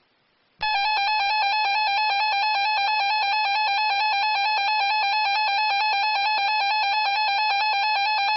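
Emergency Alert System attention signal: a steady, shrill two-tone alarm that starts about half a second in and holds without a break, announcing the start of a new emergency alert.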